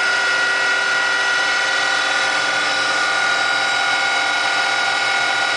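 Small stepper-controlled CNC lathe running with a steady whine while it center-drills a brass dowel.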